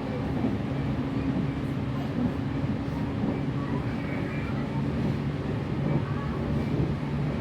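Interior of a Tokaido Main Line train running between stations: a steady rumble of wheels on rail with a constant low hum from the running gear.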